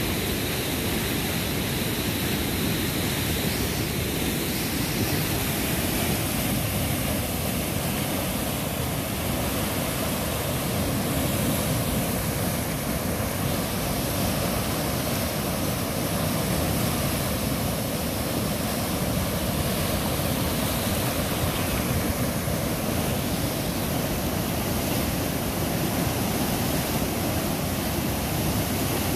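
Muddy floodwater of a swollen river rushing and churning steadily around tree trunks and debris.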